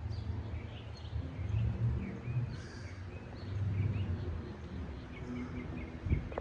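Outdoor ambience: birds chirping in many short calls over a steady low rumble.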